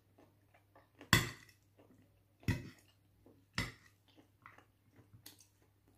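Metal fork clinking against a plate while twirling noodles: three sharp clinks a little over a second apart, with smaller taps between.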